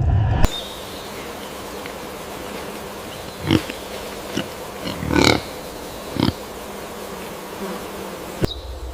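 A few short animal calls, four of them about a second apart, over a steady outdoor hiss.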